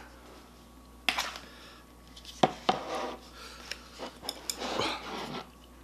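Tableware handling: the snap-on lid of a plastic food container being pulled off and set down, and wooden chopsticks knocking against the dishes, a handful of separate clicks and knocks with some scraping between them.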